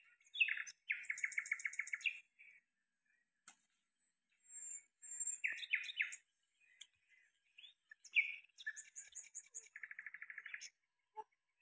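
Songbirds chirping: a few fast trills of quickly repeated notes, about nine a second, one near the start and two near the end, with short sharp calls in between.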